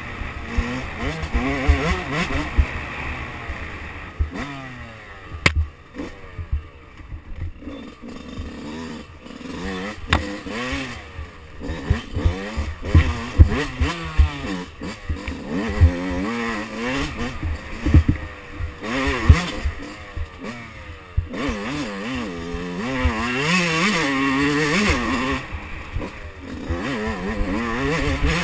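2005 Yamaha YZ125's 125 cc single-cylinder two-stroke engine, heard on board while riding a trail, revving up and down again and again as the throttle is worked. Sharp knocks break in at times.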